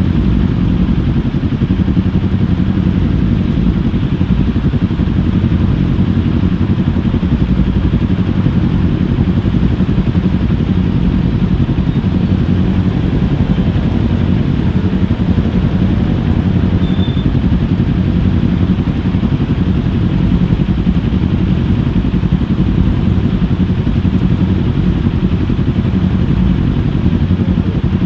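Kawasaki Ninja 400's parallel-twin engine running steadily with little change in pitch, heard from a camera mounted on the bike.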